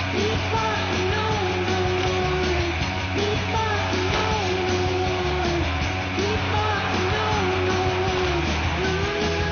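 Rock music soundtrack with distorted guitar, bass and drums, and a singing voice.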